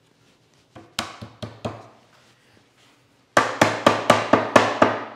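A mallet knocking the dovetail joints of a wooden cabinet case together during glue-up, driving the tails down onto the pins. There are a few light knocks about a second in, then a quick run of blows at about four or five a second.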